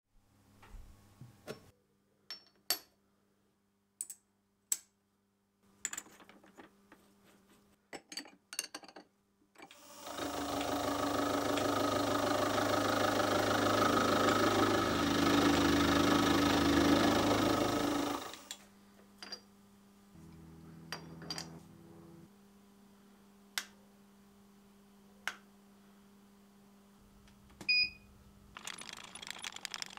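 Milling machine end mill cutting into a metal block, a loud steady grinding whir that starts about ten seconds in and stops about eight seconds later. Around it, scattered sharp clicks, a low machine hum, and a short beep near the end.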